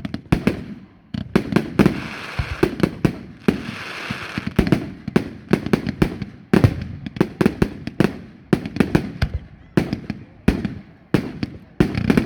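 Fireworks display: clusters of sharp bangs in quick succession, several a second, with a stretch of hissing about two seconds in.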